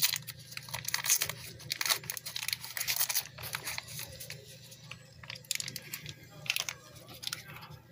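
Plastic packaging crinkling and rustling in a quick, irregular run of crackles, with some tearing, loudest in the first few seconds and tapering off.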